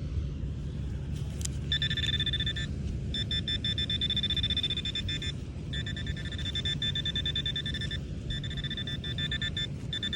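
Nokta Makro Gold Kruzer metal detector sounding its buzzing target tone over and over as the coil is swept across a buried target, in about five stretches of one to two seconds with short breaks between them. A low rumble of wind and handling noise runs underneath.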